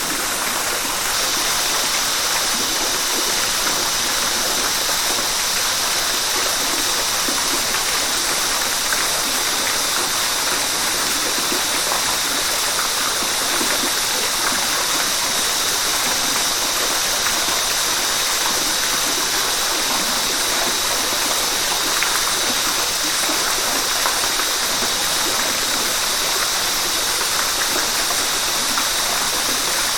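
River water rushing steadily over a waterfall, an even, continuous flow. A steady high hiss joins about a second in.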